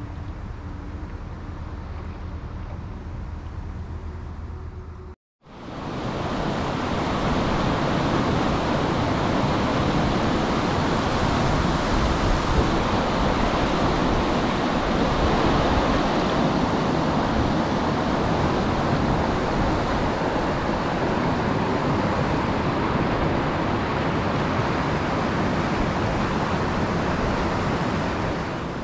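A small boat's outboard motor running steadily. About five seconds in, a sudden cut to loud, even rushing of white water over river rapids, which fills the rest.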